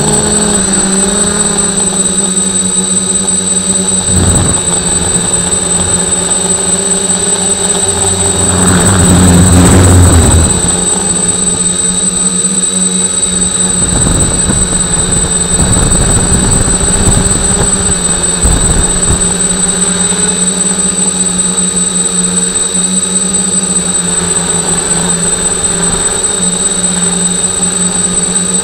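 Multicopter's electric motors and propellers humming steadily, heard through the drone's own onboard camera, with a steady high whine above the hum. About nine seconds in, a louder rushing swell with extra rumble rises and falls away.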